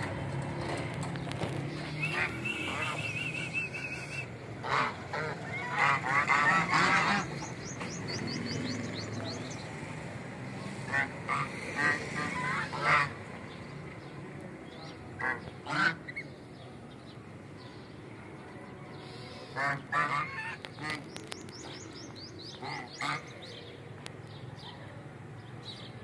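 Domestic geese honking in clusters of loud calls and scattered single honks, with quieter stretches between. A low steady hum lies under the first half and fades out about halfway through.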